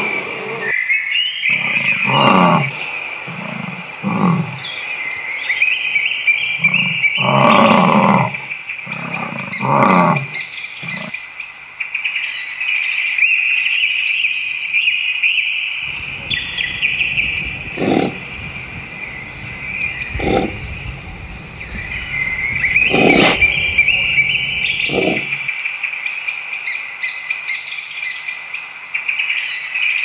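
Deep roars and growls from a large wild animal, several in the first ten seconds, over a steady high-pitched chorus. From about the middle, a low rumble with a few sharp knocks.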